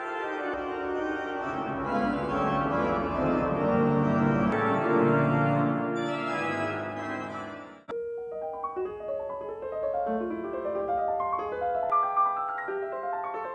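Instrumental keyboard music played through a Bluetooth speaker: dense, sustained organ-like chords, then an abrupt cut about eight seconds in to a run of separate piano notes.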